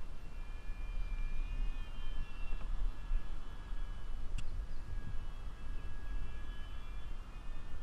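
Wind buffeting the microphone as a steady low rumble, with a faint thin steady whine above it and one sharp click about four and a half seconds in.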